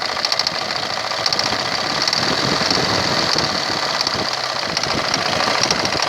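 Engine running with a rapid, steady knocking from the hydraulic pump.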